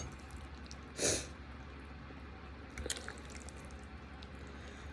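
A person eating creamy chicken Alfredo: one short breathy, wet burst about a second in and a few small mouth clicks near three seconds, over the steady low hum of an electric fan.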